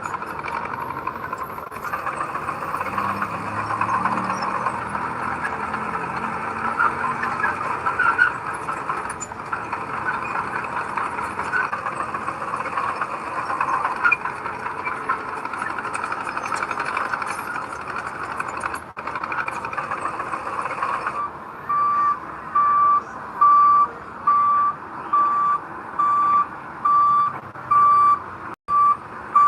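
Heavy earthmoving machinery running under load, a steady engine and mechanical rumble with gritty crackle. About two-thirds of the way in the sound changes abruptly to a reversing alarm beeping steadily, about once every 0.8 seconds, over a quieter engine.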